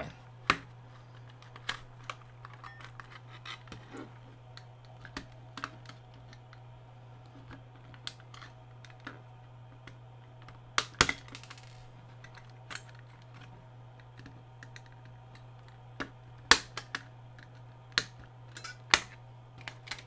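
Scattered plastic clicks and snaps as a Dish Network remote control's plastic case is handled and pried apart, the loudest snaps about halfway through and again near the end. A steady low hum runs underneath.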